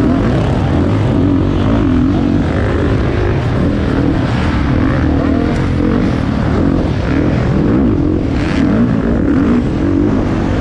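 Motocross bike engine revving up and down again and again as the rider accelerates and backs off between corners and jumps, heard on board the bike over the rush of riding, with other bikes running nearby. A brief burst of noise comes about eight seconds in.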